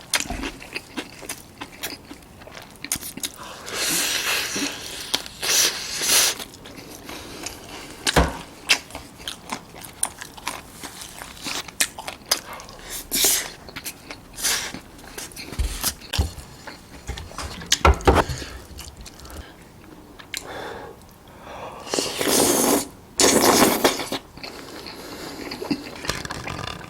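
Close-miked eating: a person biting and chewing food, with many small mouth clicks and a few louder crunchy bites, the loudest about four to six seconds in and again near the end.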